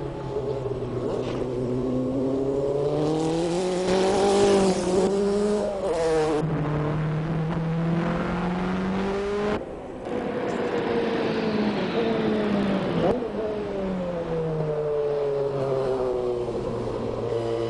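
Nissan R90CK Group C car's twin-turbo V8 at racing speed. The engine note climbs through the revs and drops at each gear change, with a sudden jump in the sound at each cut between trackside and in-car shots.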